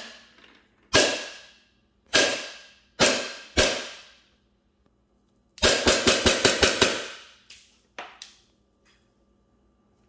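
WE Glock 19 Gen 5 gas blowback airsoft pistol firing, each shot a sharp crack from the gas and the cycling slide, followed by a ringing tail. Four single shots come about a second apart, then a rapid string of about eight shots in just over a second, and a couple of lighter clicks follow.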